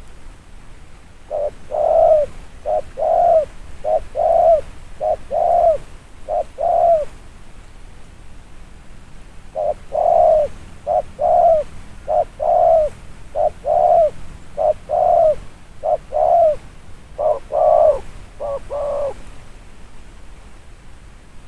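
Spotted dove cooing: two long runs of repeated low coos, the second a little longer, with a pause of a couple of seconds between them.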